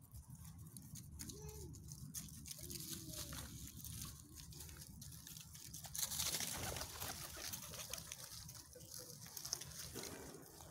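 Rustling and crackling in dry leaf litter and twigs on a forest floor, with scattered small clicks and a louder rustle about six seconds in.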